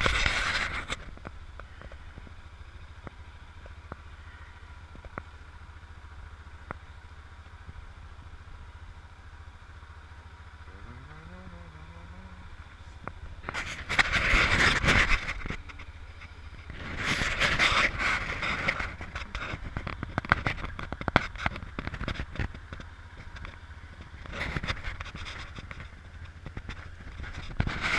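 Motorcycle engine idling with a steady low rumble, broken three times by louder stretches of rough noise.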